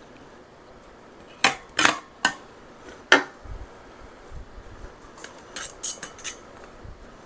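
Metal spoon clinking against a canning funnel and glass quart jar as apple slices are spooned in: four sharp clinks in the first half, then a run of lighter clicks and taps.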